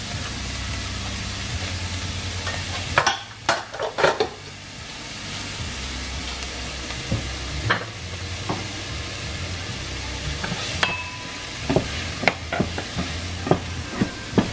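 Chopped onions with cumin seeds sizzling steadily in hot oil in a nonstick frying pan as they are sautéed toward brown. A wooden spoon stirs them, knocking against the pan a few times about three seconds in and tapping and scraping often through the second half.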